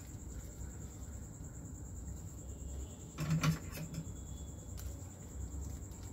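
A steady high cricket trill over a low hum, with soft handling noises as a polythene bag is tied tight over an adenium graft. A short, louder sound comes about three seconds in.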